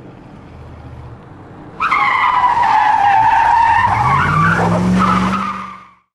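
A car engine rumbling, then a loud tire screech breaking in about two seconds in and holding, with the engine revving up beneath it, before the whole sound fades out.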